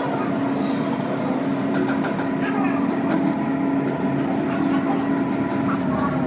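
A machine running with a steady hum over a noisy wash, with a few faint light clicks in the middle.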